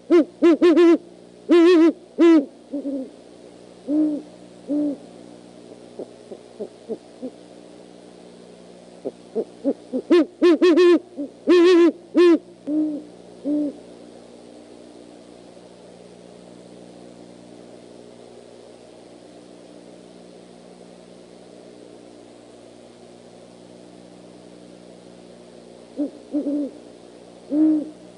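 Great horned owls hooting back and forth in bouts of low hoots mixed with harsher, higher calls. There are clusters of calls at the start and from about nine to fourteen seconds in, then a long lull before the calling resumes near the end. A steady low hum runs underneath.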